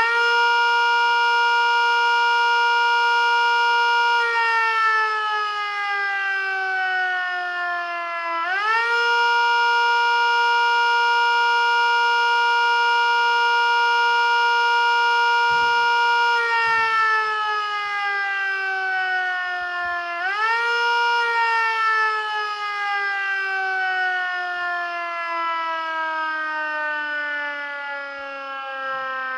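Mini Sentry 7V8 siren sounding a wail, its power cycled by a timer. It holds one steady pitch, then slowly winds down and quickly winds back up, twice, with a long fall in pitch near the end.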